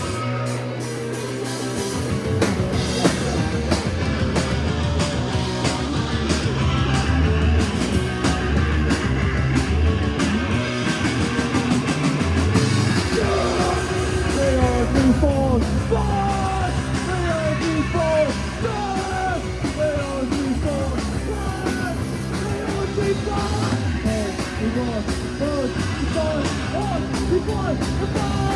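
Live punk rock band playing loud and continuously. From about halfway through, a lead line of short bending, sliding notes rides over the band.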